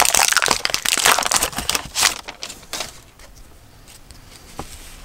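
A trading-card pack wrapper crinkling as it is handled and torn open, dense crackling for about three seconds, then quieter with a few light taps.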